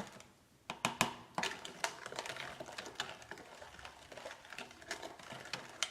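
A spoon stirring sugar into lemon juice in a container, giving irregular light clicks and knocks against the sides, a few sharper ones about a second in.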